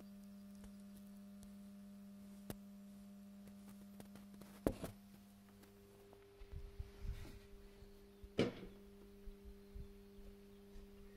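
Faint steady low hum with a few soft knocks scattered through it; the knock about eight and a half seconds in is the loudest.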